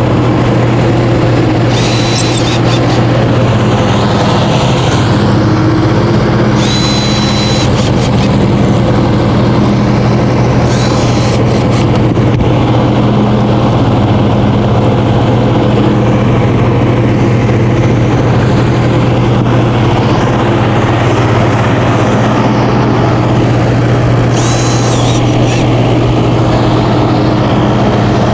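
A loud, steady machine drone with a low hum. Four short high-pitched whirring bursts, each about a second long, break through it.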